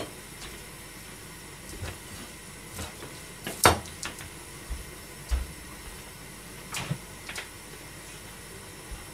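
Steady faint hiss of a lit gas stove burner heating oil in a frying pan, with a few scattered kitchen clicks and knocks, the loudest about three and a half seconds in.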